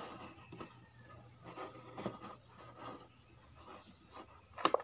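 Quiet eating sounds: a fork scraping and rustling through a bowl of instant noodles, with a quick pair of sharp clinks near the end.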